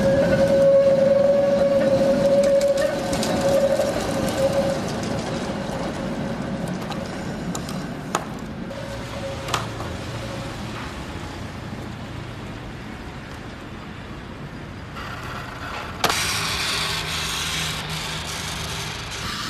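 A tram passing close by with a steady whine that fades out over the first few seconds. Then two sharp knocks about a second and a half apart as a wooden pallet is handled on the tram tracks, and near the end a louder rushing noise starts suddenly.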